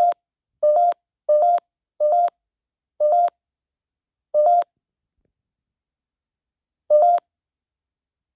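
Short electronic beeps from the GhostTube spirit-box phone app, seven in all, each about a third of a second on the same buzzy two-pitch tone. They come quickly at first and then further apart, the last about seven seconds in.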